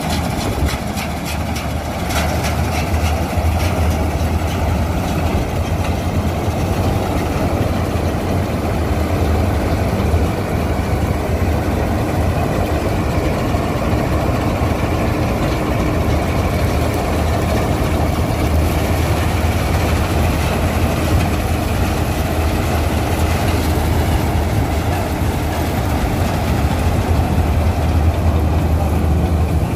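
Mahindra combine harvester's diesel engine running steadily as it cuts and threshes wheat: a continuous low drone with the rush of the machinery over it.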